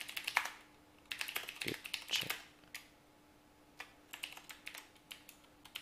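Typing on a computer keyboard: several short bursts of quick keystrokes separated by brief pauses.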